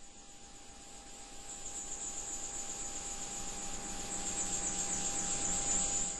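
Cricket-like high chirring, a fast pulsing band that swells steadily louder, over a steady faint tone. It is an opening texture of an ambient electronic music track and drops away near the end.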